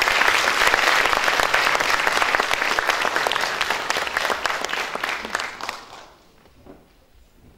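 Audience applause: many hands clapping, loud at first and dying away about six seconds in.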